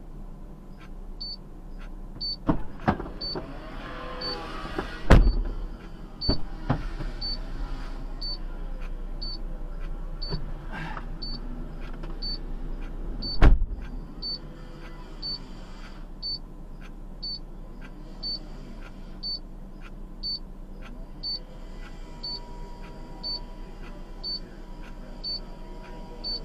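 A car's warning chime beeping steadily about once a second over a low steady hum, with a few sharp thumps; the loudest comes about five seconds in and another near thirteen seconds.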